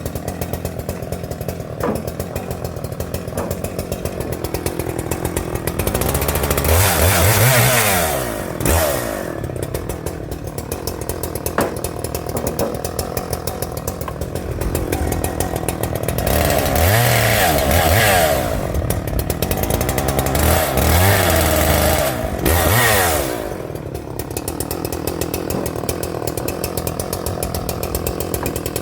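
Husqvarna 394XP, a 90cc two-stroke chainsaw, idling and then revving to full throttle three times for a few seconds each while cutting through small branches, dropping back to idle between cuts.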